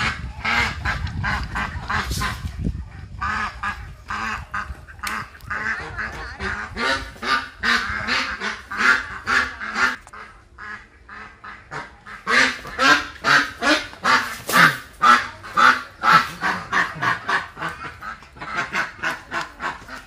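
Domestic ducks quacking, many short calls in quick succession, growing loudest about two-thirds of the way through.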